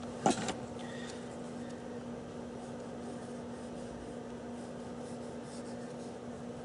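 Pen faintly scratching as a paper template is traced onto a styrene sheet, over a steady electrical hum.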